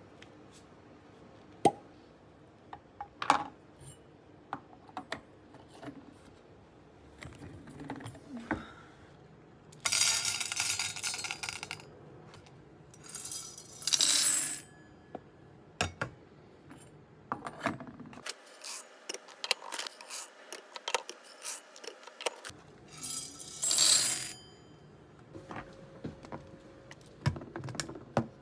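Roasted coffee beans poured from a metal jug through a stainless steel funnel into glass storage tubes, rattling in three bursts of a second or two each, the first the longest. Between the pours come scattered sharp clicks of the glass tubes and plastic lids being handled.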